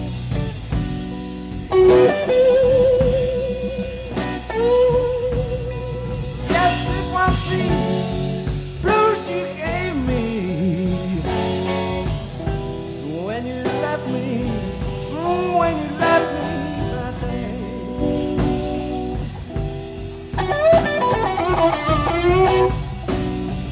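Live blues band, led by an electric guitar solo: held notes with wide vibrato in the first few seconds, then string bends and swooping slides over the rhythm section.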